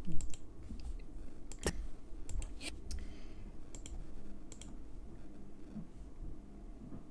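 Scattered computer clicks, about a dozen and often in quick pairs, over quiet room tone.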